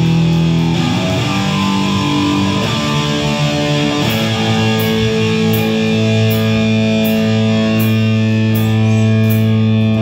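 Live rock band opening a song: distorted electric guitar rings out long held chords over the bass. From about halfway, light cymbal taps keep an even beat.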